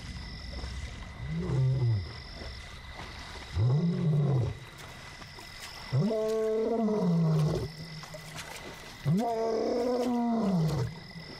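Young male lion roaring, calling out four times. Each call rises and falls in pitch, and the last two are longer.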